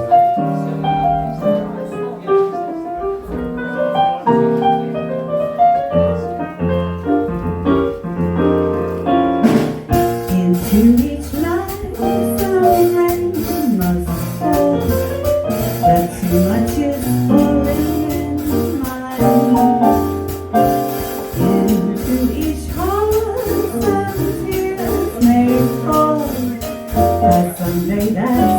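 Live small-group swing jazz: piano playing alone for about the first ten seconds, then the drums, with steady cymbal time, and the double bass come in under a gliding melody line.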